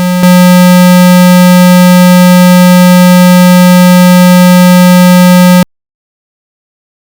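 Steady 195 Hz water-eject tone, a loud buzzy hum with many overtones, played to vibrate trapped water out of a phone's speaker. It steps up louder about a quarter second in, then cuts off suddenly after about five and a half seconds.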